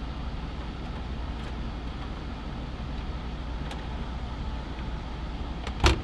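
Steady low hum and whir of an Arctic King portable air conditioner running. Just before the end comes a single sharp knock as a small cabinet door is shut.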